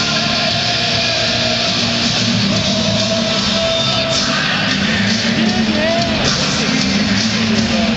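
Loud, steady heavy rock music with electric guitar and singing.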